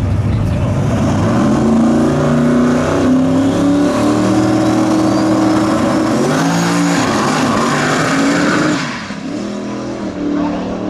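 Volvo 240 wagon drag car's engine revving hard on the starting line, then launching down the drag strip; the engine pitch climbs in steps, shifts, and the sound drops off sharply about nine seconds in as the car pulls away.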